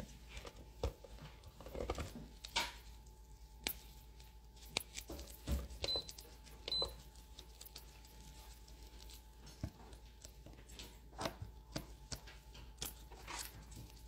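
Scattered light clicks and taps of a practice nail tip and nail-art tools being handled on a tabletop. Two short high beeps sound about six and seven seconds in.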